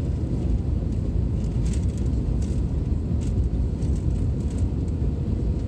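Steady low rumble of engine and airflow noise inside an Airbus A321 cabin on final approach, with flaps extended.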